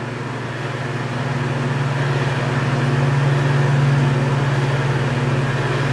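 Steady low mechanical hum, swelling gradually to its loudest about four seconds in and then easing slightly.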